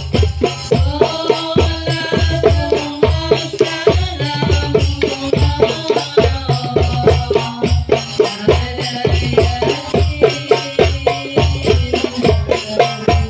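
A woman singing a melody through a microphone and PA, over steady hand-drum beats and jingling, rattling percussion.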